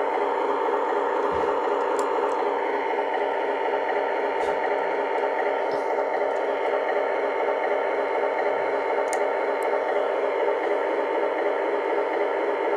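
Lionel O-gauge Alco S4 switcher's onboard sound system playing a steady diesel engine rumble through its small speaker, with a few faint clicks.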